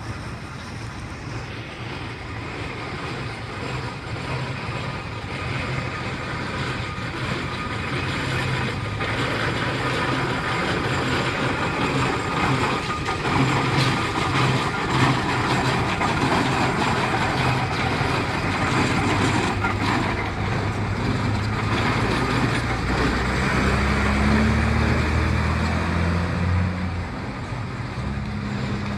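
Steam traction engine rolling along a road on its iron-rimmed wheels, growing louder as it approaches and passes. Near the end a van's engine runs steadily as it follows by.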